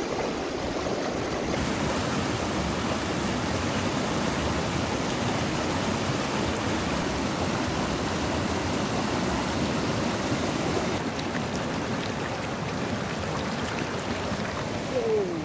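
Fast mountain river running over boulders in shallow rapids, white water churning in a steady, even rush.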